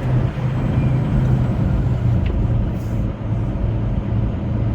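Semi truck's diesel engine running: a steady low drone that pulses evenly.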